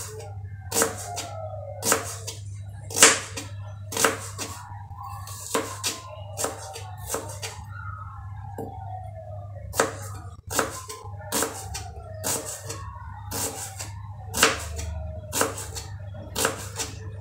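Kitchen knife slicing a red onion on a plastic cutting board: sharp knocks of the blade hitting the board, unevenly spaced at about one or two a second.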